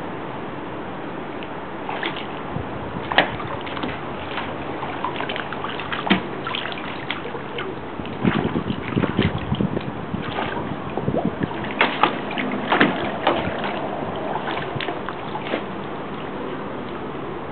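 Dogs splashing in the water of a plastic kiddie pool as they nose and paw at something in it: irregular small splashes and sloshes, busiest in the middle.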